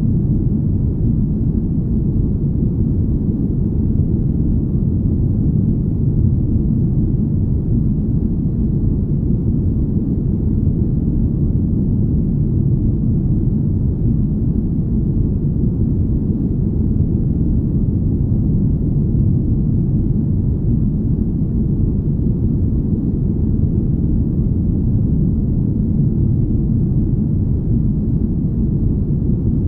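Deep, smooth rumble of a spaceship-cabin ambience: a steady, unchanging low noise with almost nothing high above it.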